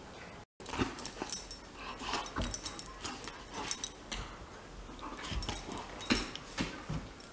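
A golden retriever's soft, irregular play noises, mixed with scuffling and scratchy clicks of paws and claws as it wrestles with a kitten. The sound cuts out briefly about half a second in.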